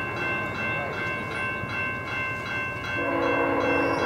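Level-crossing warning bell ringing rapidly, about four strokes a second, as the crossing signals activate for an approaching train. About three seconds in, the approaching VIA passenger train's horn sounds, a held chord that becomes the loudest sound.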